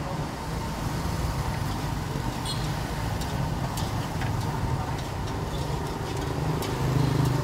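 Steady low rumble of street and traffic noise, with a faint steady hum and a few light clicks of utensils and cups.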